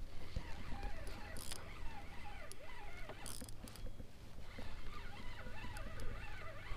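Geese calling over a steady low rumble, with scattered light clicks and knocks.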